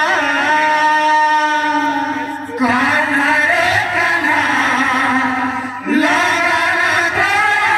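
Odia devotional kirtan sung by a troupe of men in chorus, holding long notes, with short breaks about two and a half seconds and six seconds in.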